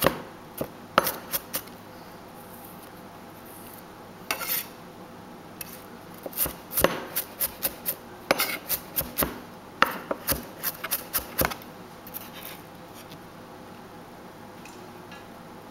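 Cleaver mincing shallots on a round wooden chopping block: bursts of rapid knocks with short pauses between them, stopping about twelve seconds in.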